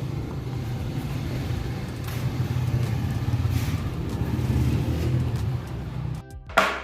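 A steady low rumble, like a motor running, that drops away about six seconds in, followed by a single sharp knock near the end.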